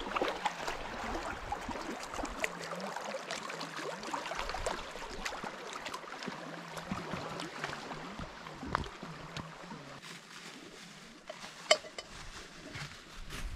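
Small waves lapping and splashing against the lake shore: a steady wash with many small ticks and splashes. A single sharp click comes near the end.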